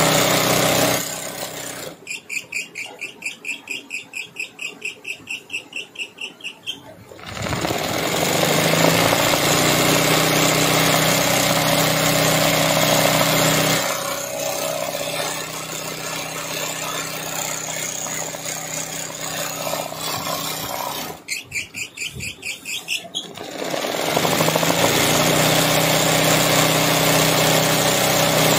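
Sewing machine running steadily while stitching free-motion embroidery on hooped cloth. Twice it drops to a quieter, even pulsing of about four beats a second before running at full speed again.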